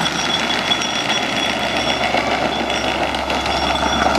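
Hard plastic wheels of a ride-on toy car rolling fast down a paved hill: a loud, steady, rough rumble that began abruptly just before.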